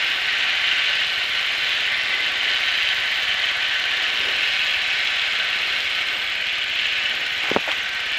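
Steady cockpit noise of a Piper Archer on short final, with engine and airflow noise heard from inside the cabin. A single short thump comes near the end.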